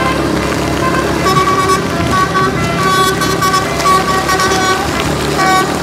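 Bus's multi-tone 'telolet' Basuri horn playing a quick run of short tooting notes that change pitch, like a little tune. A steady low engine rumble runs underneath.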